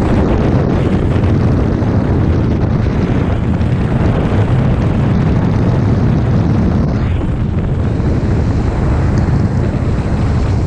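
Steady, loud rush of freefall wind buffeting the camera microphone as skydivers fall through the air.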